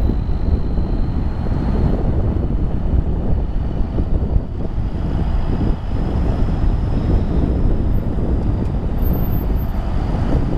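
Wind buffeting the microphone, a loud, uneven low rumble, with a faint high whine above it.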